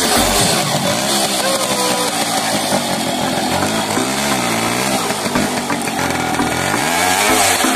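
Yamaha motorcycle engine being revved, its pitch rising and falling back in several swells, the strongest about halfway through and again near the end.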